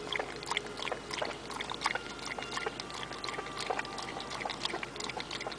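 Pekingese dog lapping water from a paper cup: an irregular run of quick wet tongue clicks and slurps, several a second.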